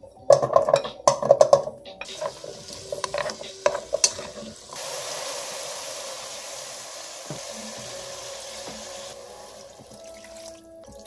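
Cut carrot and broccoli pieces clattering into an empty metal pot, then a steady hiss from the pot as the vegetables cook in it.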